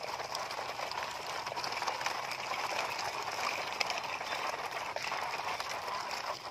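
Plastic toy dump trucks loaded with gravel being towed over a gravel track: their plastic wheels rolling and crunching on the stones, a steady gritty rattle with many small clicks.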